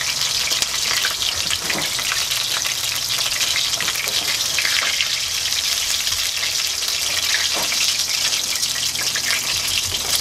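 Oil sizzling steadily in a frying pan, with a few soft knocks.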